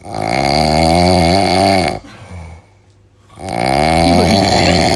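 A man snoring loudly: two long, drawn-out snores of about two seconds each, with a short quieter pause between them.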